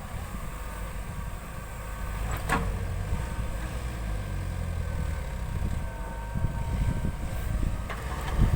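JCB 3DX backhoe loader's diesel engine running at work, a steady low rumble with a faint steady whine over it and one sharp knock about two and a half seconds in.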